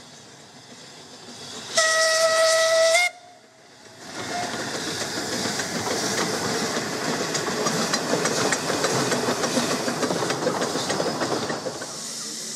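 The double Fairlie 0-4-4-0T steam locomotive 'Earl of Merioneth' gives one whistle blast of just over a second. It then works past hauling its coaches, with a steady hiss of steam and a dense clatter of exhaust and wheels. Near the end the sound drops to a softer hiss.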